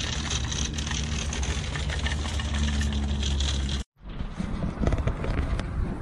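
Shopping cart rolling over rough asphalt: a steady rumble from the wheels with the cart rattling. It cuts off abruptly about two-thirds of the way through, then resumes with a lighter rattle and a few clicks.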